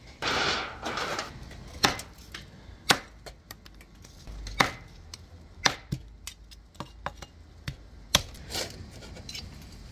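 Meat cleaver chopping grilled chicken pieces on a granite cutting board: about seven sharp chops, irregularly spaced roughly a second apart, after a brief rustle at the start.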